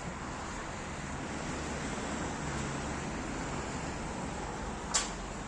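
Steady background noise with a faint low hum, broken by one sharp click or knock about five seconds in.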